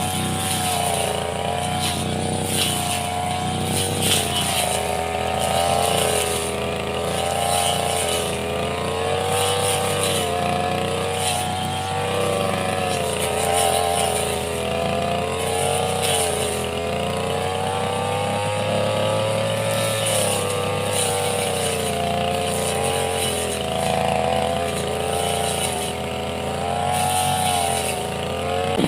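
Petrol brush cutter engine running steadily at working speed, its pitch wavering up and down as the load changes.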